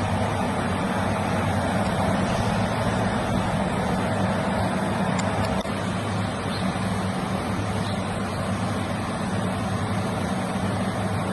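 Steady road-traffic noise with a low, even engine hum.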